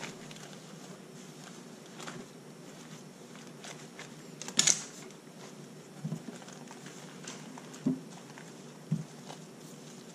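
Cloth rustling as towels are draped and tucked over soap molds on a countertop, with scattered soft knocks from handling; one sharper knock comes about halfway through, with a few softer ones after it.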